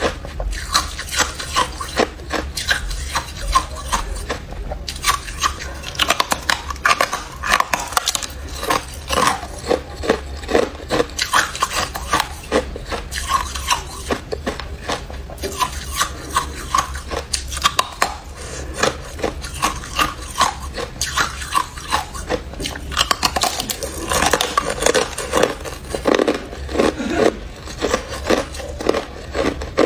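A person biting into and chewing a slab of frozen crushed ice, a rapid, continuous run of sharp crunches close to the microphone.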